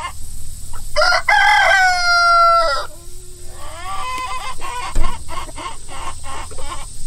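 A rooster crows once, a long call of nearly two seconds starting about a second in. Then chickens cluck in a run of short calls, with a single thump about five seconds in.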